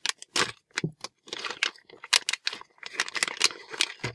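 Crinkling and tearing of a thin plastic blind-bag wrapper being ripped open and handled, in quick irregular crackles, with small loose plastic pieces rattling inside the bag.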